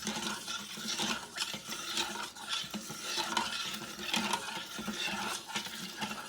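A spoon stirring spices and seeds into hot water in a bowl. It scrapes and clinks around the bowl in repeated strokes.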